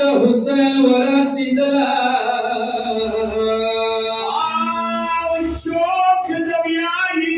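A man singing a Shia mourning lament (nauha) unaccompanied into a microphone, in long held notes that glide up and down in pitch.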